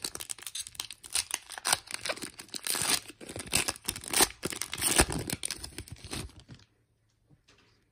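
Foil wrapper of a Donruss Elite football card pack being torn open and crinkled by hand, a dense run of crackles that stops about six and a half seconds in.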